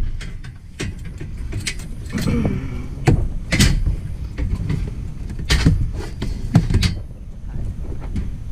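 Scattered knocks and clatters, about ten of them, from scrap chairs being handled and shifted, over a steady low rumble.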